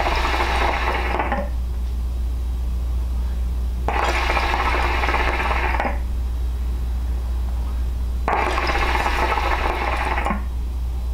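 Water in a KM Mini Beast hookah's base bubbling as it is drawn through the hose. There are three pulls of about two seconds each: at the start, about four seconds in, and about eight seconds in.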